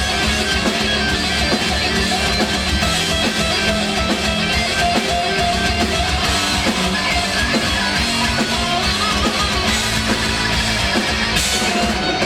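A metal band playing live at full volume: heavy, distorted electric guitars over a fast drum kit, as one dense, unbroken wall of sound.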